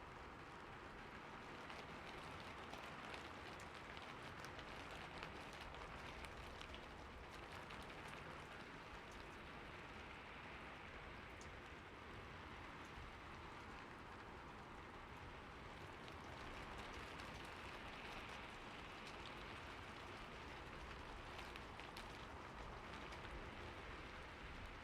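Steady rain falling on a surface, a dense even patter with individual drops ticking through it.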